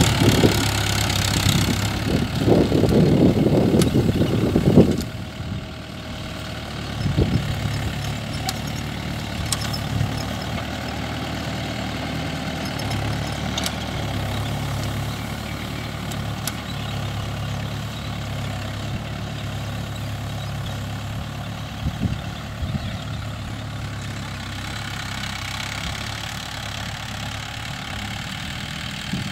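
Mahindra Yuvo 575 DI tractor's four-cylinder diesel engine running under load as it pulls a tine cultivator through the field. The sound is loudest and noisiest for the first five seconds, then settles into a steady, quieter drone as the tractor works farther off.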